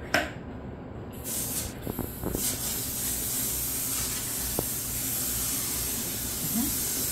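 Hand-pump pressure sprayer spraying cleaning solution from its wand onto a tile floor: a steady hiss that starts about a second in.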